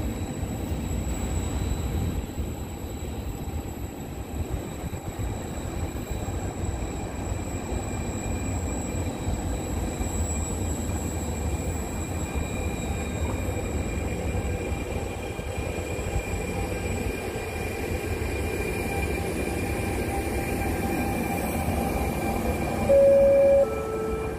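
A double-deck electric passenger train with an E.464 locomotive rolls past close by, a steady rumble of wheels on rails with a faint high whine over it. Near the end a short, loud two-note falling tone sounds.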